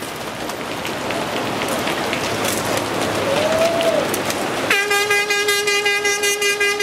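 Mountain bikes of a mass-start pack rolling past, a noisy whir with faint clicking. Almost five seconds in, a horn starts one steady, loud blast.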